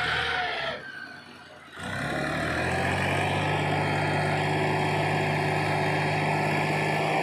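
Tractor diesel engine running steadily under load as the bogged-down tractor tries to pull itself out of soft mud. The sound drops away briefly about a second in, then the engine holds a steady note.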